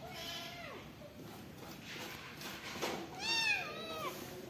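A young kitten meowing twice: a short call at the start that falls away in pitch, then a louder call about three seconds in that rises and then drops.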